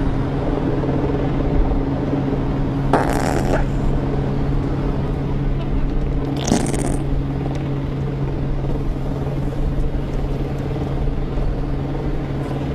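A steady low motor hum, like an idling engine, with two brief noisy swishes about three and six and a half seconds in.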